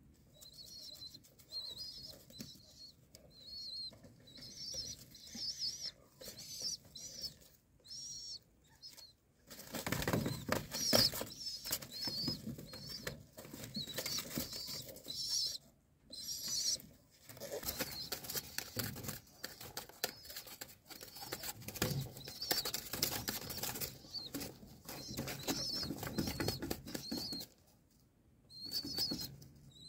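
A young pigeon repeatedly calling in high, wavering squeaks. From about ten seconds in, loud wing flapping and scuffling in the nest litter join the calls, with a couple of short pauses.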